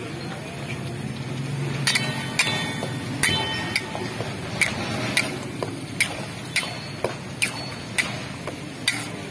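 A metal spatula knocking and scraping against a karahi (wok) as the chicken karahi is stirred. The sharp metallic knocks, some with a brief ring, start about two seconds in and come about twice a second over a steady low background noise.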